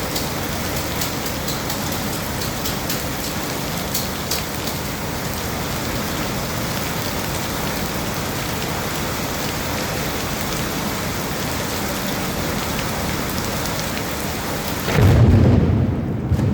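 Heavy rain falling steadily, with a few sharp drop ticks, then a loud, deep thunderclap rumbling in suddenly near the end.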